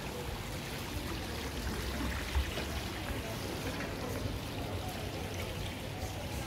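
Steady outdoor ambience: an even rushing hiss like running water, with faint voices and a low rumble underneath.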